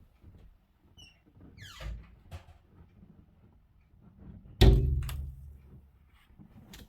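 A single loud thump, with a low rumble dying away over about a second.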